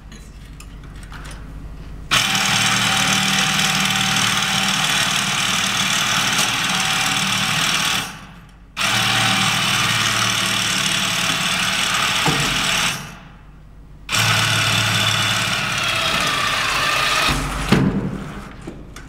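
A FIRST Robotics competition robot's electric motors and gearboxes running as its arm is raised up the tower, in three long runs with short pauses between them. The pitch sags just before the last run stops, and a sharp click follows near the end.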